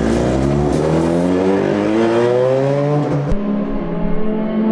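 Norton RCW588 twin-rotor Wankel race engine pulling away under power just after a push start, its note rising steadily for about three seconds. Then an abrupt cut to a steadier, higher engine note.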